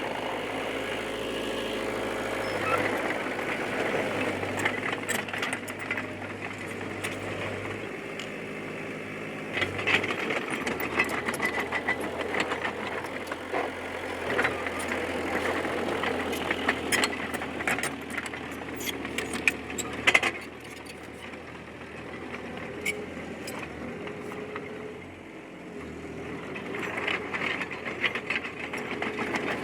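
D20P crawler bulldozer's diesel engine running as the dozer works, with frequent metallic clanks and knocks from the tracks and blade. The engine note shifts about a third of the way in, there are sharp clanks around the middle, and the machine eases off for a few seconds before picking up again near the end.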